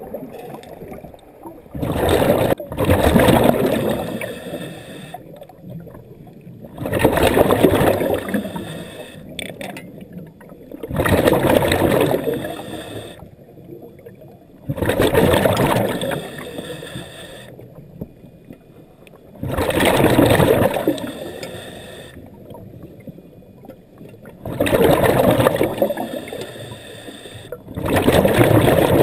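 A diver breathing underwater through a regulator: each exhalation is a loud rush of bubbles lasting a second or two, repeating regularly about every four to five seconds, with quieter stretches between.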